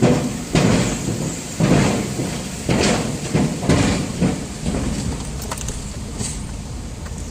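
Road noise inside a moving truck's cabin: a steady low rumble with irregular thumps and rattles every second or so, fewer after about four seconds.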